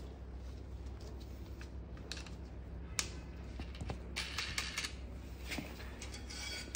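Light clicks and knocks of a metal rod and a plastic bracket being handled and fitted together. One sharp click comes about three seconds in, and a run of small clicks and rattles follows around four to five seconds in.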